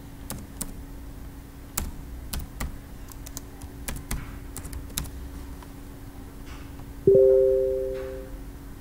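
Computer keyboard keys clicking in scattered taps as a word is typed. About seven seconds in, a loud two-tone notification chime rings out and fades away over about a second.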